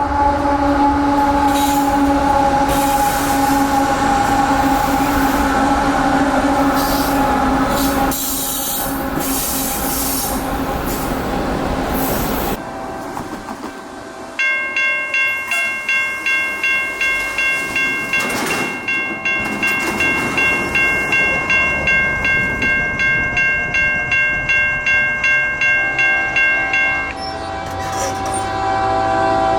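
Freight train running by with its locomotive horn sounding a steady chord. After a cut, a grade-crossing warning bell rings evenly at about two strokes a second. A locomotive horn chord then starts near the end.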